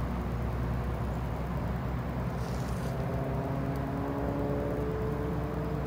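Road traffic: a car driving past on the road, a steady rumble of tyres and engine, with a faint hum coming in about halfway through and rising slightly in pitch.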